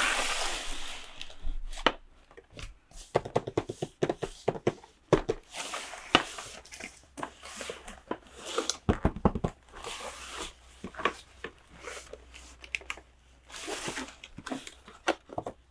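Toy packaging being handled and opened: plastic and paper crinkling and tearing, with many short clicks and taps from small plastic pieces.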